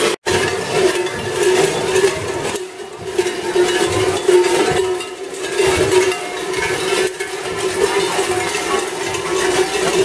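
Large cowbells on the belts of kurent carnival figures, clanging continuously as they hop and sway, a dense ringing jangle. It drops out briefly just after the start.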